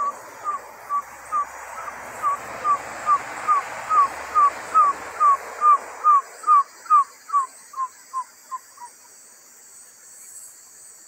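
Trogon (surucuá) singing: a long run of about twenty evenly spaced hooting notes, about two a second, each slurring slightly downward. The notes grow louder and then fade out about nine seconds in.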